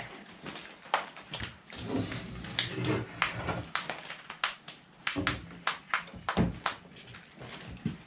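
Wooden boards being handled and set down on a folding table: a string of sharp knocks and clatters.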